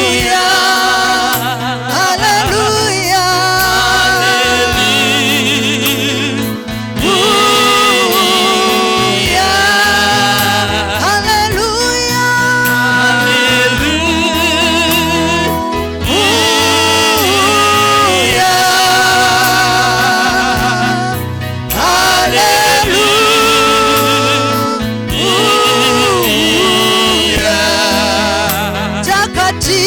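Gospel song with sung vocals with vibrato over a steady bass line, pausing briefly between phrases.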